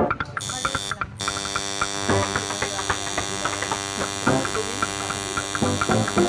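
Coil tattoo machine buzzing steadily as the needle works on skin; it starts about half a second in, stops for a moment around a second in, then runs on.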